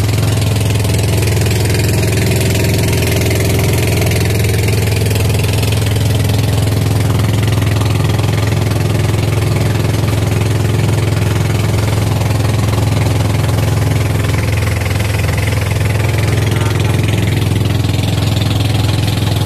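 Inboard engine of a motorized outrigger boat (bangka) running steadily at cruising speed, a constant low hum, with an even hiss of wind and water over it.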